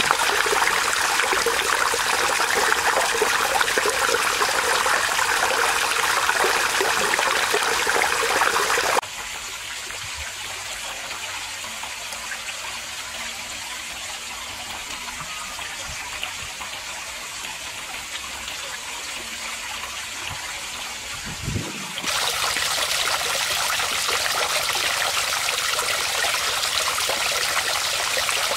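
Water trickling in thin streams over a stone ledge and splashing into a small garden pond, a steady splashing. It is clearly quieter for a stretch in the middle, then loud again.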